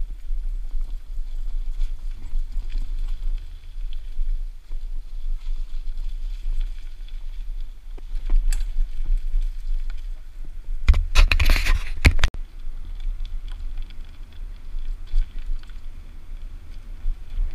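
Jupiter Atlas HD mountain bike ridden over a dirt trail, heard from a camera on the rider: a steady low rumble of wind on the microphone and tyres on the ground, with scattered clicks and rattles from the bike. A louder burst of clattering comes about eleven seconds in, lasting just over a second.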